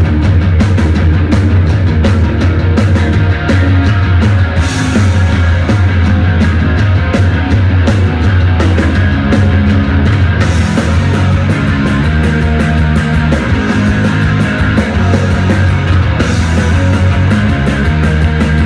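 Live rock band playing loud with distorted guitar, bass and drums, the cymbals swelling a few times; no vocals are picked up.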